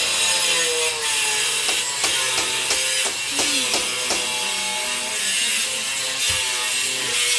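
A power tool running steadily, its pitch dipping and recovering as it bites into the work, typical of drilling or cutting through a wall.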